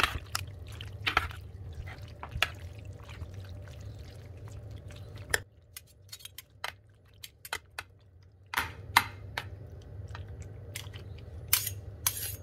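Two metal spoons, one slotted, stirring cream-sauced pasta in a ceramic baking dish: wet squelching with sharp clinks and scrapes of metal against the dish. A steady low hum runs underneath and drops out for about three seconds midway.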